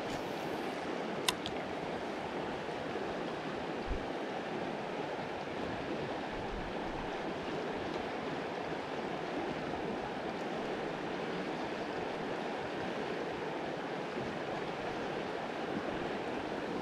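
Steady rush of a flooded, storm-swollen river's fast water. A single sharp click sounds about a second in.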